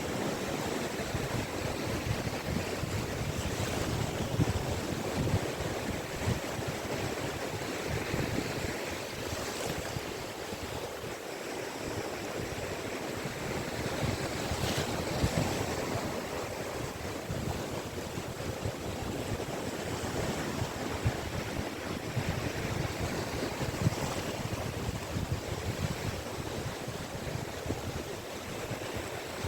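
Sea waves breaking and washing continuously on a Caspian Sea beach, swelling and easing every few seconds, with wind rumbling on the microphone.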